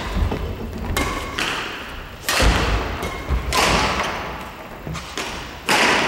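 Badminton rally: rackets striking the shuttlecock in sharp cracks about every one to two seconds, each ringing on in the echoing gym hall, with thuds of footsteps on the wooden court floor.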